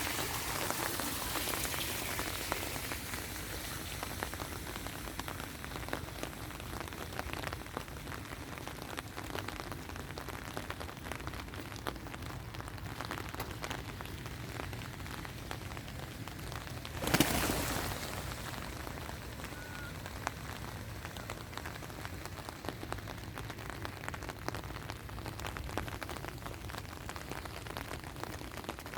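Steady rain falling, a constant hiss dotted with many small drop ticks, a little heavier in the first few seconds. About 17 seconds in comes a single brief, loud whoosh that fades within a second.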